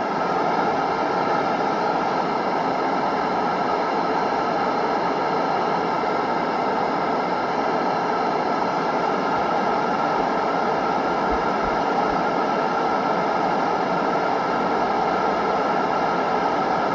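Steady hiss of radio static, even in level throughout, with no clear voice or tone in it.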